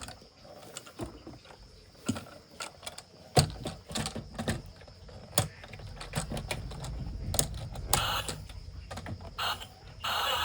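Plastic toy vehicles being handled and unboxed: irregular clicks, taps and knocks of plastic parts, with a low rumble building underneath from about a third of the way in.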